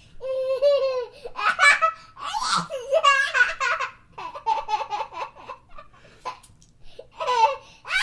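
A young child laughing in a long run of high-pitched bursts with short breaks for breath.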